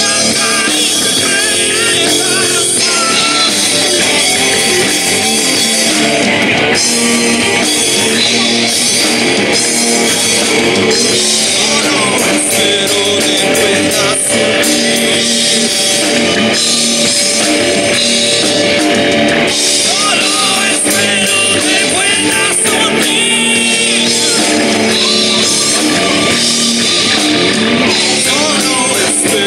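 Live rock band playing loud and steady on electric guitars, electric bass and drum kit, with a singer's vocals over the top.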